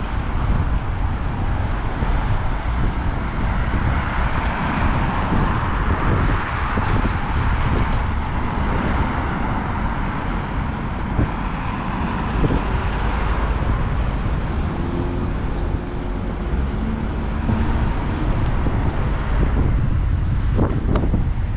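Street traffic: cars passing on the road alongside, their tyre and engine noise swelling and fading twice, over a steady low rumble of wind on the microphone.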